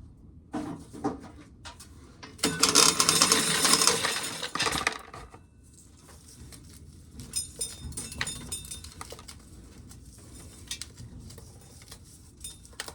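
Dried corn being shelled off the cob, the kernels rattling and clinking into a pail. There are scattered clicks, with one dense run of rattling about two and a half seconds long a few seconds in.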